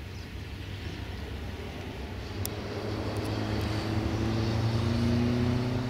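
Diesel train engine running under power, its note slowly rising in pitch and getting louder toward the end as the train picks up speed.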